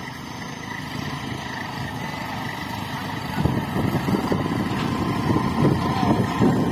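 Kubota B2741 27 HP mini tractor's three-cylinder diesel engine running under load while pulling a cultivator through the soil. It grows louder about halfway through as it comes close.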